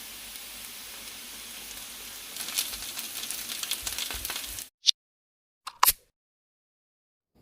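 Vegetable fritter batter shallow-frying in oil in a pan: a steady sizzle that turns busier with crackles about two and a half seconds in, then cuts off suddenly. Two brief sharp sounds follow.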